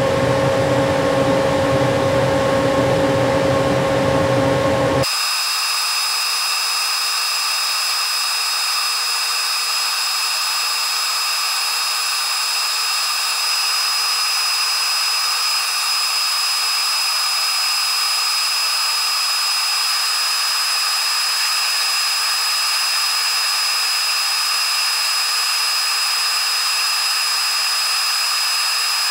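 CO2 laser cutter running steadily as it cuts acrylic sheet, a full machine hum with steady tones. About five seconds in it switches abruptly to a thinner, higher steady whine with no low end, the machine's sound sped up.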